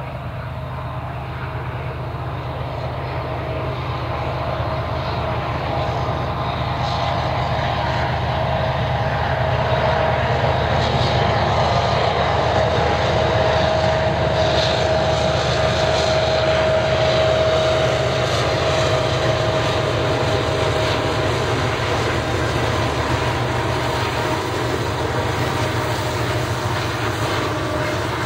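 Several Union Pacific diesel-electric locomotives heading a double-stack container train: a low engine rumble with a steady whine on top, growing louder as they approach and loudest as they pass about halfway through. Near the end the container cars roll by.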